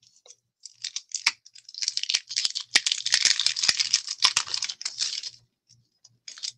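Hands handling a clear plastic packaging sleeve: crinkling and rustling with small clicks. Scattered crinkles start under a second in, turn into steady crinkling for about three seconds, then stop.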